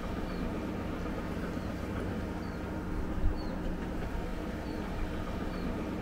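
Steady low rumbling outdoor noise, with a faint short high chirp repeating about once a second and a single brief knock a little past the middle.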